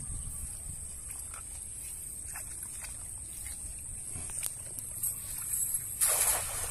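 A 12-foot, 4 kg weighted cast net splashing onto pond water in one brief burst about six seconds in, over a steady high hiss and low rumble.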